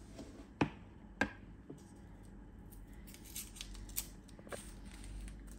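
Two sharp clicks about half a second apart near the start, then a run of quick small crackles a few seconds in as a sweet wrapper is crinkled open by hand.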